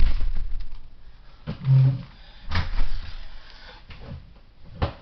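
Handling noise and several sharp knocks from Lego pieces being handled on the building desk, with a low rumble in the first second and a brief low hum near the middle.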